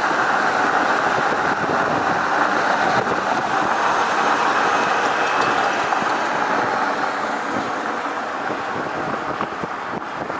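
Mercedes-Benz GenH2 fuel-cell truck driving: a steady rush of road and wind noise, easing slightly toward the end.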